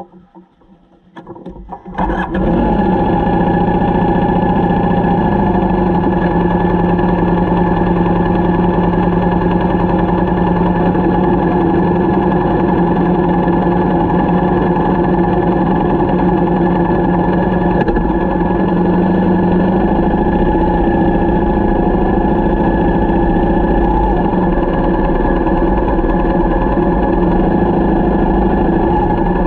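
Motorcycle engine starting about two seconds in, then running steadily at an even pitch.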